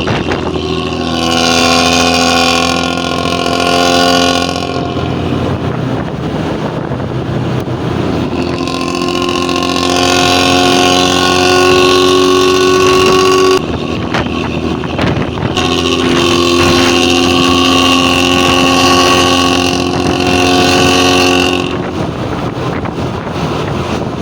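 Bus engine revved and held through a loud exhaust growl in three long blasts of several seconds each, the pitch steady within each blast, over a constant low rumble between them.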